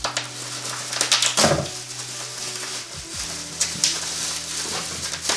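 Bubble wrap and a plastic bag crinkling and crackling as hands unwrap a small object, in irregular bursts with a louder crackle about a second and a half in and another near the end.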